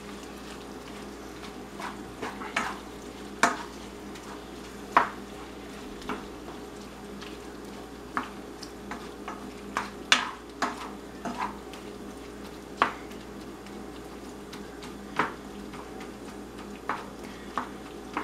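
Wooden spoon stirring ground beef browning in a frying pan: irregular scrapes and knocks of the spoon against the pan over a faint sizzle.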